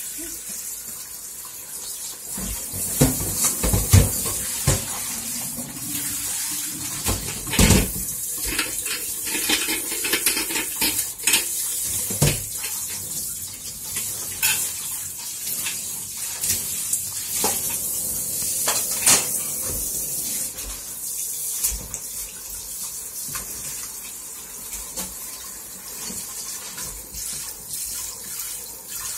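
Tap water running and splashing into a stainless steel kitchen sink during hand dishwashing, with knocks and clinks of a metal pot and dishes against the sink, the loudest about three to four seconds in and again near eight seconds.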